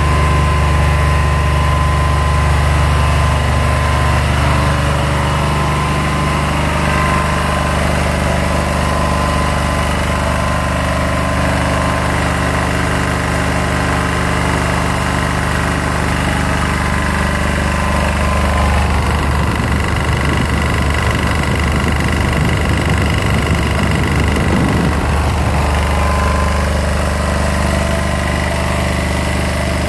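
Old 6 kW diesel generator engine running steadily while it powers a stick welder. An uneven low rumble breaks in for several seconds about two-thirds of the way through.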